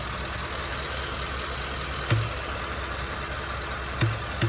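Ford F-150's 5.0 V8 idling, with a short low thump like air popping at irregular intervals: once about two seconds in and twice close together near the end. The owner suspects the intake or throttle body; there is no check engine light.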